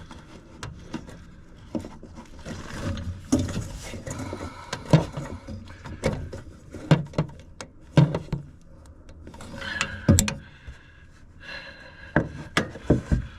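Irregular knocks, clicks and scraping of hands working inside a gas furnace to fit a replacement hot surface igniter, with several sharper clunks.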